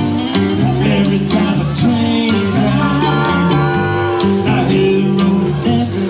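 Live blues-rock band playing: electric guitars, harmonica, bass and drums, with singing.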